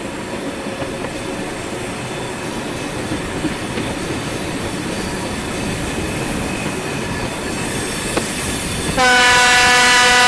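Steady running noise of a train rolling along the track behind electric locomotives. About nine seconds in, the locomotive horn sounds one loud, steady-pitched blast.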